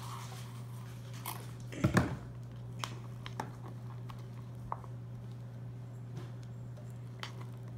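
Sticky glue-and-contact-solution slime being stirred and pulled with a thin stick in a plastic cup: scattered small clicks and squelches, with two louder knocks about two seconds in, over a steady low hum.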